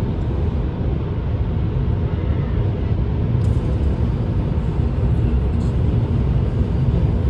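Steady low road and engine noise inside a moving car, with a faint higher hiss joining about three seconds in.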